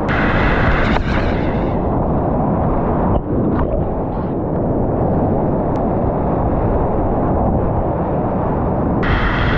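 Whitewater rapids rushing and churning close around a kayak, heard as a loud, steady low roar of water. The roar dips briefly about three seconds in.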